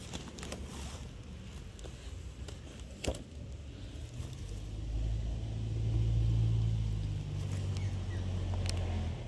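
A low motor rumble that swells up about halfway through and drops away near the end, like a motor vehicle going by. There is a single sharp tap about three seconds in.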